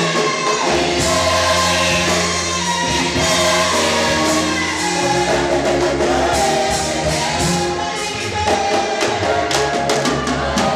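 Live gospel music: a choir singing over band accompaniment with a steady drum beat and a moving bass line.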